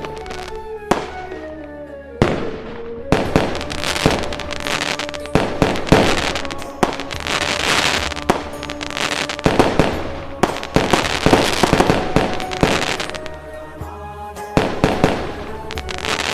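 Fireworks going off: sharp bangs and a dense run of crackling bursts from about three to thirteen seconds in, with music playing underneath.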